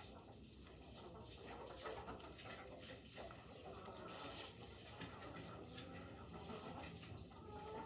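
Quiet room tone inside a barn, with faint scattered light ticks and taps.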